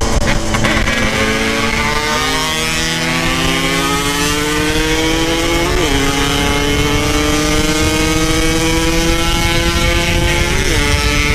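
Yamaha RX-King two-stroke motorcycle engine at full throttle, its note climbing slowly in pitch while accelerating, with brief dips about 6 and 10.5 seconds in as it shifts up a gear.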